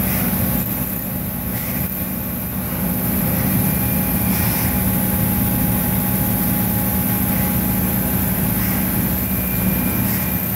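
CNC vertical machining centre milling a long metal extrusion with a small end mill under coolant: a steady machine hum with faint steady tones and a constant high hiss, dipping slightly in loudness about a second in.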